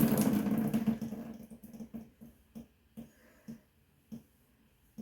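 Bathroom tap water running, dying away about a second in as it is shut off, then a string of single drips falling, slowing from about two a second to one every half second or more.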